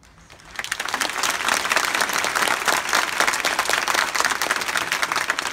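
A crowd of supporters applauding, a dense clatter of many hands clapping that breaks out about half a second in and keeps going.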